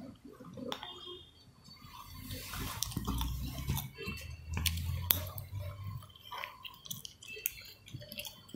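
Blanket rustling and scattered soft clicks and taps as a hand plays with a kitten on a bed, with a brief louder rustle about two seconds in.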